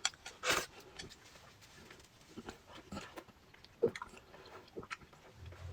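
Close-miked eating of crispy food: a loud crunchy bite about half a second in, then scattered small chewing clicks and soft mouth sounds.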